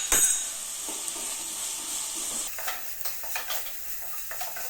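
Diced vegetables sizzling in hot oil as they are stir-fried, with a spatula scraping and clicking against the pan through the second half. A single sharp knock on the pan right at the start.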